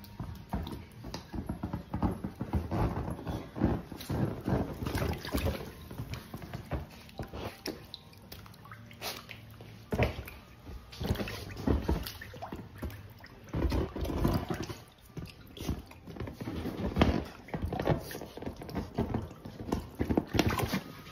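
Shallow water sloshing and splashing in irregular bursts as a puppy wades and paws about in an inflatable paddling pool.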